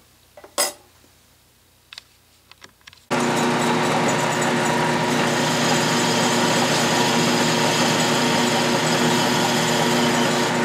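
A few light clicks, then about three seconds in a 12-inch Atlas/Craftsman metal lathe starts suddenly and runs steadily, a hum with several steady tones over a noisy hiss, while a boring bar is fed by hand to cut a counterbore in the spinning part.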